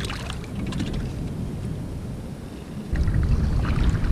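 Wind buffeting the microphone, with small water splashes and ticks around a kayak at sea; the wind rumble grows suddenly louder about three seconds in.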